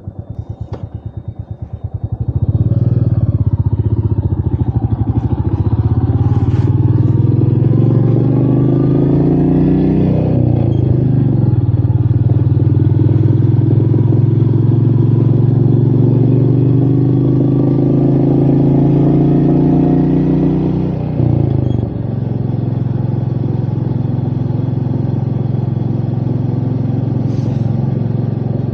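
Royal Enfield Meteor 350's single-cylinder engine ticking over with a slow, even pulse, then pulling away: revs rise, fall at a gear change about ten seconds in, rise again, and drop at another shift about twenty-one seconds in before it runs steadily.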